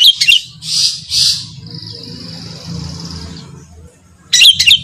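Long-tailed shrike (cendet) calling. A burst of sharp, loud chattering notes comes first, then two harsh rasping calls, then a drawn-out hiss, and a second burst of sharp notes near the end. A low hum runs underneath.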